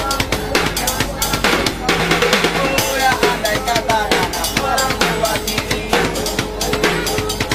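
Busker band music: a snare drum struck in a fast, busy rhythm under a singing voice, with acoustic guitar.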